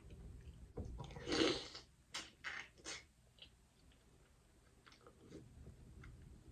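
Close-miked eating of a shellfish seafood boil: chewing and wet mouth sounds. A louder noisy sound comes about a second and a half in, followed by three sharp clicks in quick succession, then fainter ticks.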